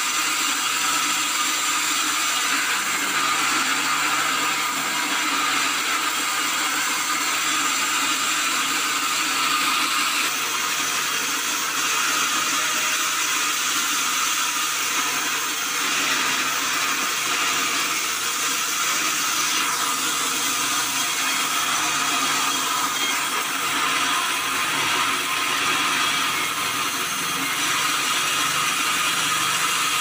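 Vertical band sawmill running and sawing a log lengthwise into boards: a steady, continuous machine noise from the band blade cutting through the wood.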